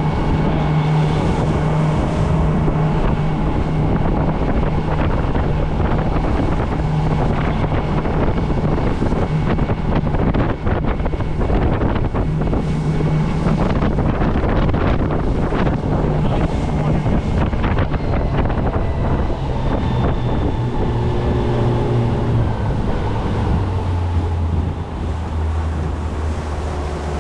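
Boat motor running under way, with strong wind buffeting the microphone and scattered knocks of the hull on the waves; near the end the engine note drops to a lower pitch as the motor is throttled back.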